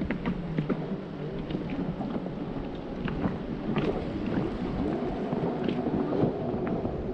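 Small boat at sea: water slapping and splashing against the hull with irregular sharp splashes, and wind buffeting the microphone.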